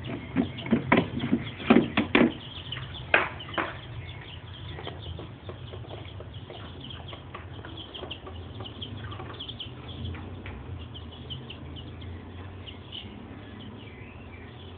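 A quick run of knocks and clatter in the first four seconds as a small animal cage and plastic container are handled, then faint, short, high chirps over a steady low hum.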